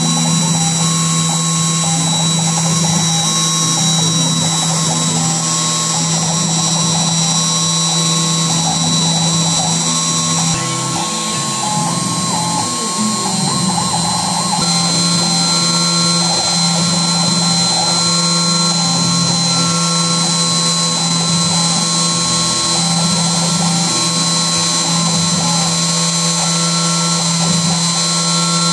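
CNC machine running, a steady mechanical drone with a high whine that shifts in pitch twice, near ten and fourteen seconds in.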